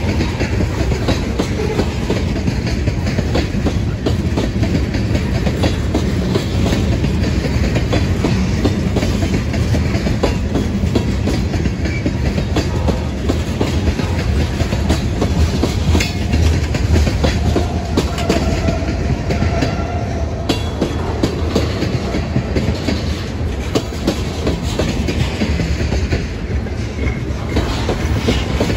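Freight train cars rolling past close by: tank cars and then an autorack. Steady loud rumble with wheels clattering over the rails.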